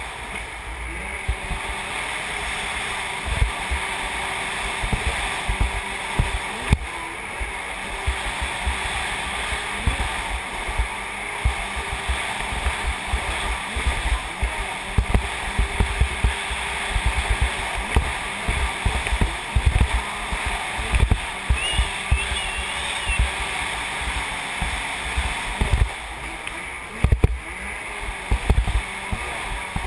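Kawasaki JS550 stand-up jet ski's two-stroke twin engine running under way, with water rushing past the hull and irregular low thumps as it slaps across the chop.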